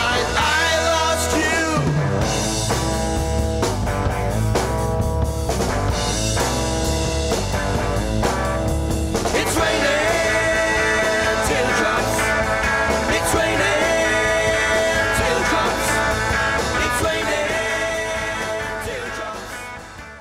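A rock duo plays a 1960s psych-rock song on electric guitar and a Ludwig drum kit, the music fading out over the last couple of seconds.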